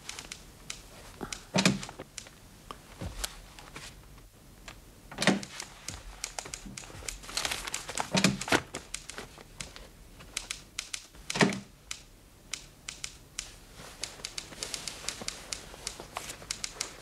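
Light, irregular clicking and rustling in a small room, with clusters of quick clicks and four louder knocks spaced about three seconds apart.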